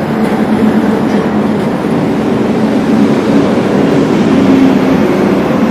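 Steady vehicle noise: an engine hum over a rushing road rumble.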